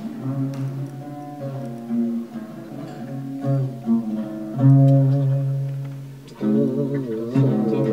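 Instrumental music on a plucked string instrument: notes picked one after another, each ringing out and fading, over a low bass note. Near the end the music grows fuller, with a wavering melody line joining in.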